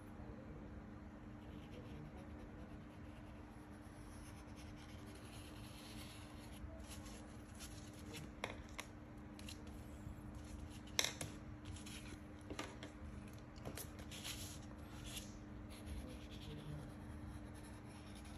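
Felt-tip marker rubbing and scratching on coloured paper as circles are drawn, with faint paper handling and a few light clicks, the sharpest about eleven seconds in. A low steady hum runs underneath.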